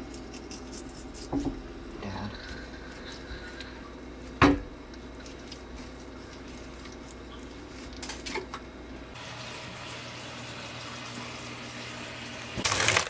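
A knife filleting a lake trout on a wooden cutting board: scattered soft scrapes and small clicks, with one sharp knock about four and a half seconds in, over a steady low hum that stops about nine seconds in. Near the end comes a short stretch of louder rushing noise.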